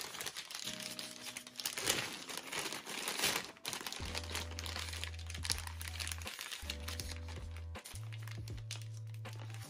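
Grey plastic mailer bag crinkling and crackling as it is handled and pulled open by hand, over background music of held low notes that change every few seconds.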